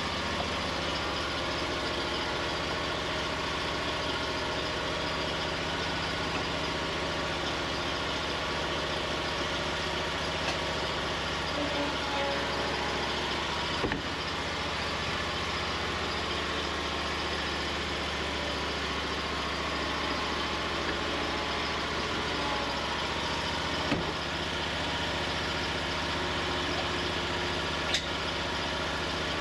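John Deere Z-Trak zero-turn mower engine running steadily, with three short sharp clicks spread through it.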